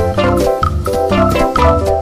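Upbeat background music with a steady beat and bouncing keyboard-like melody.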